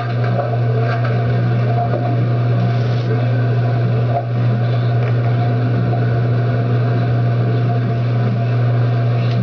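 A loud, steady low hum with faint hiss above it, unchanging throughout.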